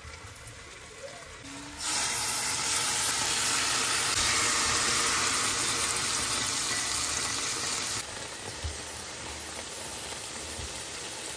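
Teriyaki-marinated chicken thighs frying in a hot oiled pan: a loud, steady sizzle begins about two seconds in as the raw pieces go into the oil, then drops to a quieter sizzle for the last few seconds.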